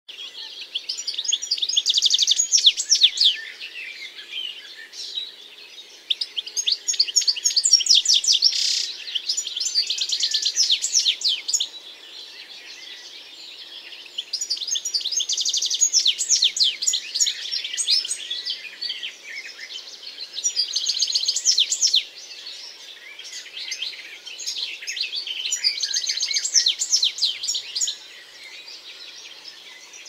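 European robin singing: phrases of quick high notes and trills, each two to four seconds long, repeated with short pauses between.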